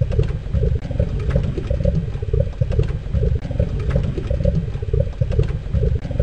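Baking soda and vinegar foam bubbling and popping up close, irregular small pops and crackles over a heavy low rumble.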